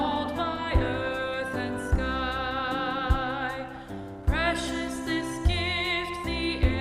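A hymn sung with vibrato over instrumental accompaniment, with a low beat about every 1.2 seconds.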